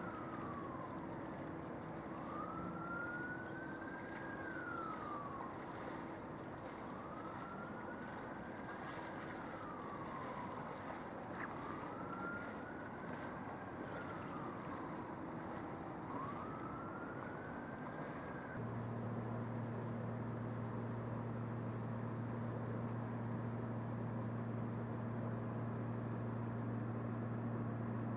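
Emergency vehicle siren in a slow wail, rising and falling about every four seconds, over a steady background wash. About two-thirds of the way through the siren stops and a steady low hum takes over.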